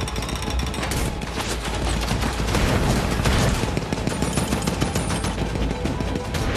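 Rapid, sustained gunfire from a warship's deck guns at close range, many shots in quick succession over a steady low rumble.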